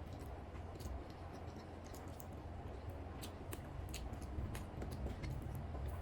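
Close-miked eating of chicken biryani: irregular soft clicks and smacks of chewing, over a low steady hum.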